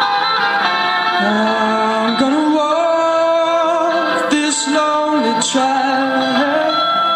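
Live song performance by a male singer and a guitarist: long held, wordless sung notes that waver and slide between pitches over sustained guitar.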